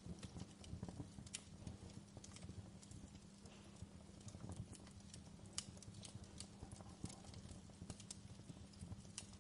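Faint wood fire crackling in a fireplace: irregular sharp pops and snaps over a low, steady rumble.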